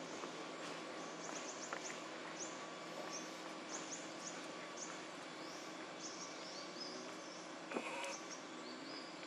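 Outdoor woodland ambience: a steady hiss of insects, with a run of short, rising high-pitched bird chirps through most of it. There is a brief louder sound about eight seconds in.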